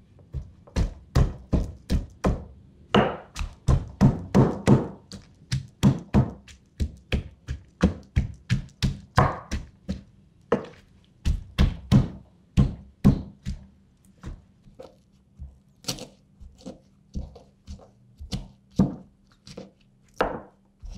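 Stone pestle knocking in a stone mortar (an Indonesian cobek and ulekan), pounding chillies, tomato, shallots and garlic for sambal: a steady run of dull knocks, about two a second.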